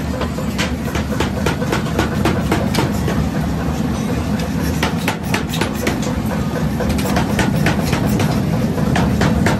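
Irregular sharp metal clinks and scrapes as a steel rod pushes a red-hot axe-head blank across a steel plate, over a steady low rumble in the forge.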